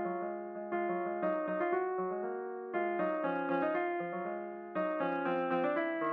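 Background piano music: struck notes and chords that ring and fade, with new phrases starting about every two seconds.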